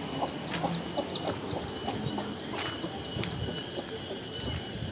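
Countryside ambience: a steady high drone of cicadas, with scattered short bird calls over it.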